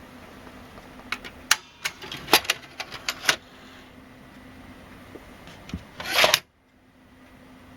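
Victor BR-6400 VHS video deck mechanism: a quick run of sharp clicks and clunks, then a short louder rush that swells and cuts off suddenly about six seconds in, over a low steady hum.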